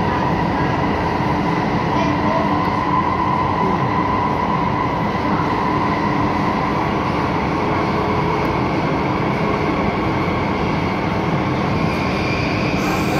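Alstom Metropolis M5/M6 metro train running through a tunnel, heard from inside the car: a steady rumble of wheels on rail with a steady high whine over it. The whine rises slightly in pitch near the end.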